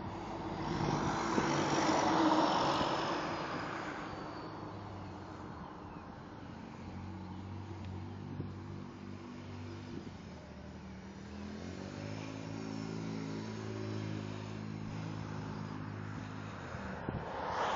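A vehicle passes with a swelling rush that is loudest about two seconds in and then fades. After that a motor vehicle engine drones steadily, its pitch rising about twelve seconds in, and it stops near the end.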